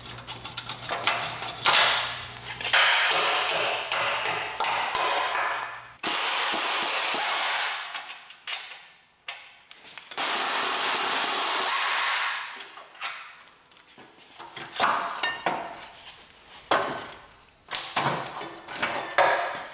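Hand tools on the rusty shock absorber mounts of a truck frame: pliers and a wrench clanking and tapping on metal, with scattered knocks. Three stretches of steady hiss run for a few seconds each.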